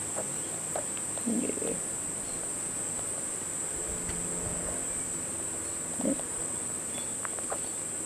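A steady high-pitched hum that holds one even pitch throughout, with two faint, short, soft sounds about a second and a half and six seconds in.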